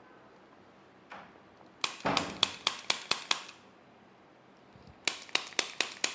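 Hand-held chiropractic adjusting instrument firing on the C1 vertebra: a quick run of about seven sharp clicks, some four or five a second, starting about two seconds in, then a second run near the end.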